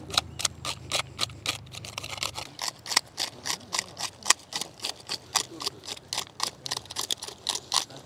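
Knife blade scraping the scales off a carp, in quick repeated strokes, several a second.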